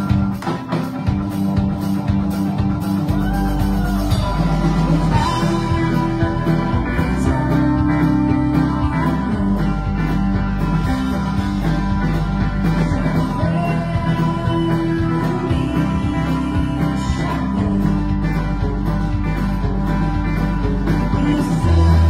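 Live rock band with banjo, electric guitar and drums playing a song, the low end filling in about three seconds in.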